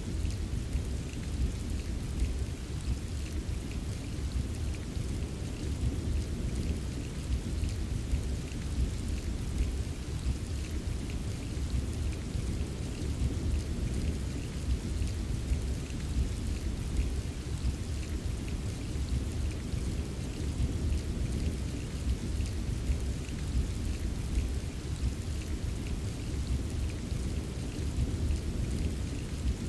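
Steady rain: an even hiss of falling rain with faint drop ticks over a continuous deep low rumble, unchanging throughout.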